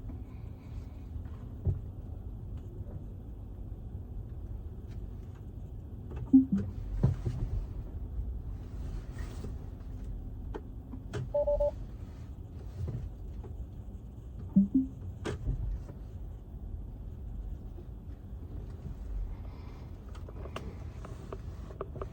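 Steady low rumble of a car cabin, with scattered knocks and clicks, and a brief two-note tone about halfway through.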